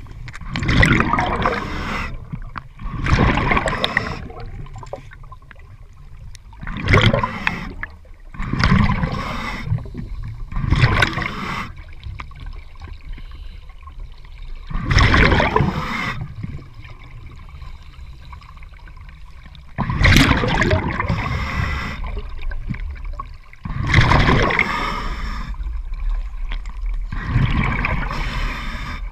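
Open-circuit scuba breathing heard underwater: a regulator's exhaled bubbles gurgling in irregular bursts, one every two to four seconds.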